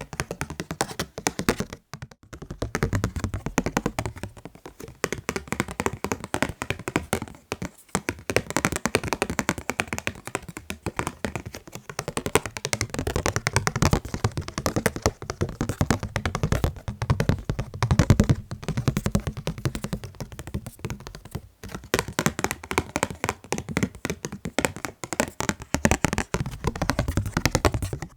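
Fast tapping by hand on the items of a fan-club membership kit: a dense, rapid run of small taps and thunks, broken by a few brief pauses.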